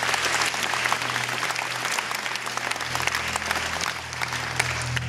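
Concert audience applauding, the clapping thinning out near the end, over a low steady hum from the stage.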